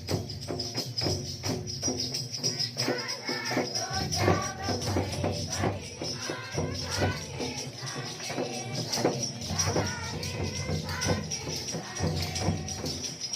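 Group of people singing a hymn together, with tambourines shaken in a steady rhythm.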